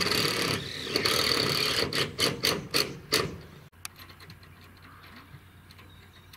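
A quick run of about six sharp knocks over a second and a half, then the sound cuts to a quieter background with faint ticks.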